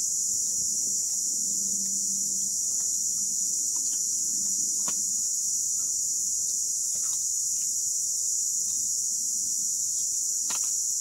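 Steady, high-pitched drone of a chorus of insects, with a few faint clicks.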